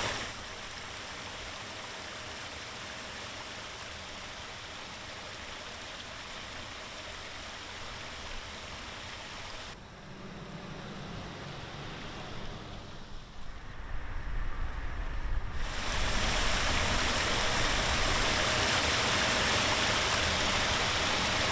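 Steady rushing of flowing water. The sound changes abruptly about ten seconds in, turning quieter and lower, then about sixteen seconds in turns louder and fuller.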